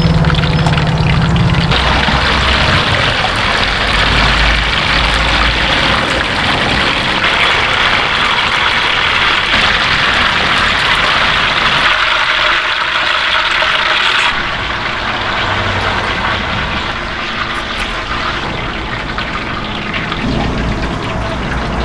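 Hot oil sizzling hard in a deep fryer as battered pieces fry. The sizzle eases off a little past halfway.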